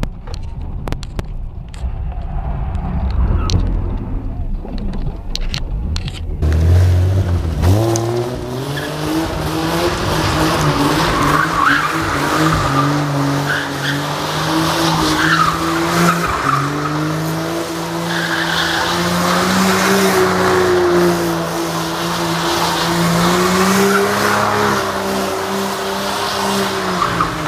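BMW 325es inline-six engine held at high revs while the car drifts, its rear tyres squealing as they spin and slide on a locked differential. For the first several seconds it is heard from inside the car as a low rumble with scattered clicks. About six seconds in it switches to the car heard from outside, where a strong, slowly rising engine note and tyre squeal run together.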